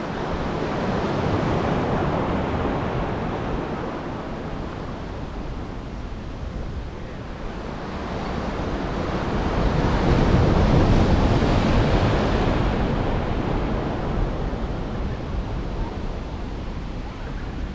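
Ocean surf washing below the jetty, with wind on the microphone. It swells twice, loudest about ten to twelve seconds in.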